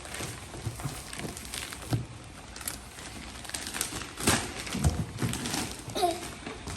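Packaging being handled: scattered rustling and light knocks, with a brief vocal sound about six seconds in.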